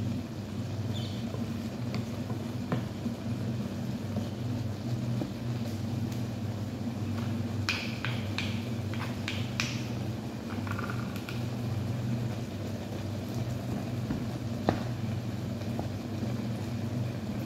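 Wooden spatula stirring ground chicken in a wok, with scattered knocks, over a steady low hum. About halfway through comes a quick run of sharp taps as a metal spoon scrapes food off the spatula.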